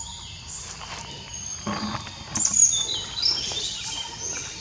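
Birds chirping in short, high notes, with a few brief crackles like footsteps on dry leaf litter; the loudest chirp comes about two and a half seconds in.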